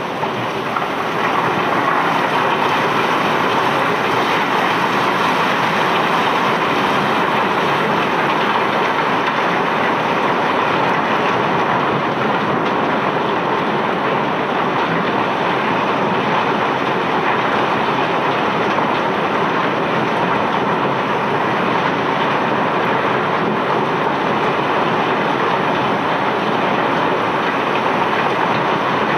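A dense, steady rattle of rounded river cobblestones tumbling and clattering against one another as the cargo flows out of a barge's hold. It swells about a second in and then holds even.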